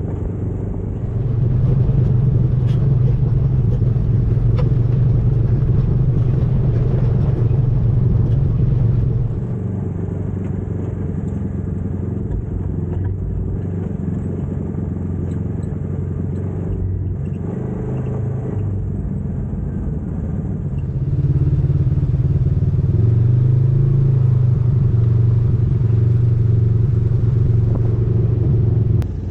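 Side-by-side UTV engine running while driving on a dirt trail. The engine note comes up louder about a second in, eases off for a stretch in the middle, then comes up again before cutting off suddenly near the end.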